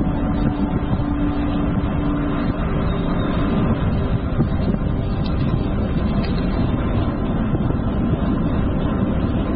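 Wind and road noise on the microphone of a GoPro action camera carried on a moving bicycle: a steady rush with no breaks. A faint hum lies under it for the first two seconds or so.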